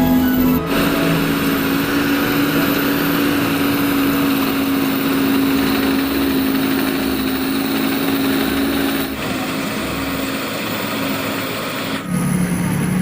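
Rice combine harvester's engine running steadily under load while the machine works, with a dense mechanical clatter around a constant droning tone. The sound shifts abruptly about a second in, again around nine seconds, and near the end.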